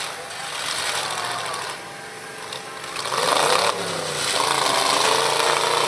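Demolition derby cars' engines revving hard, getting louder about three seconds in.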